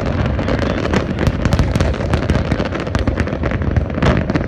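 Fireworks finale barrage: many shells bursting in rapid succession, sharp bangs and crackles overlapping into a continuous rumble of booms.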